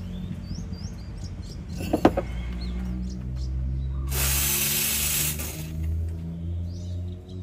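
Espresso machine steam wand purged into a towel: a hiss of steam that starts about four seconds in and lasts about a second and a half. A sharp knock comes about two seconds in.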